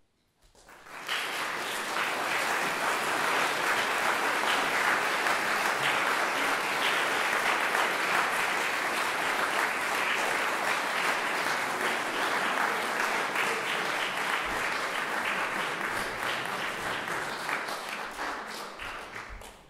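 Audience applauding: the clapping swells quickly about a second in, holds steady, and fades out near the end.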